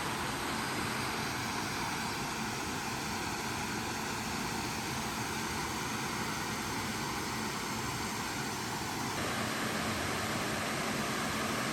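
Steady rushing of water pouring over a stone mill dam.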